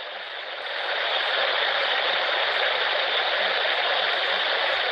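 Steady rushing hiss of background noise from a played-back recording, swelling up over about the first second and then holding level.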